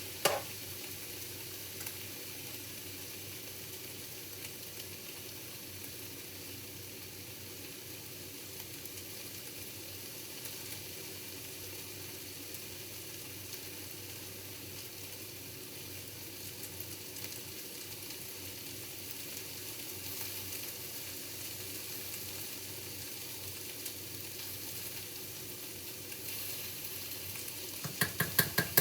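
Vegetables stir-frying in a pan: a steady sizzle, with a quick run of clatters near the end.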